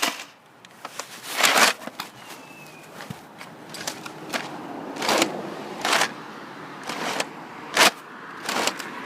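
Footsteps and clothing rustle picked up by a chest-worn camera as the wearer walks forward: a run of short scuffs, roughly one a second.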